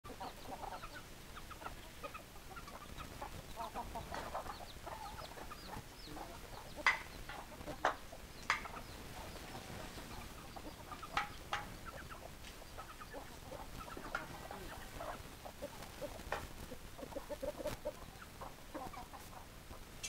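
A small flock of chickens clucking in short, soft calls throughout, with a handful of sharp, louder clicks in the middle.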